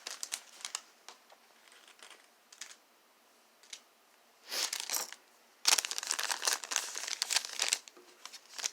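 Plastic packaging crinkling as it is handled: a few short rustles at first, then a dense stretch of crinkling about two-thirds of the way in.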